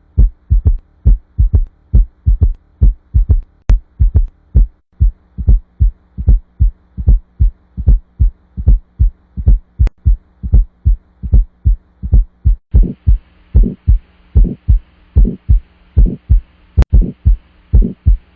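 Heart sounds heard through a stethoscope: a regular lub-dub beat of paired low thumps. About 13 seconds in, a second recording takes over, with fuller beats and a steady hiss behind them: the heart murmur example.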